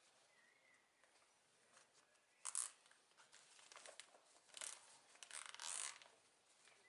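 Green plastic tarpaulin rustling and crinkling in short bursts as it is pulled and gathered over the top of a pole, the loudest about two and a half seconds in and a longer one near the end.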